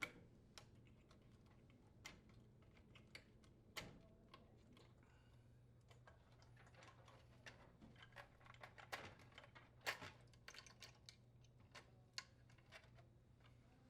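Faint, scattered clicks and small plastic handling sounds as wire connectors are pulled off a microwave's control board terminals, over a faint low hum.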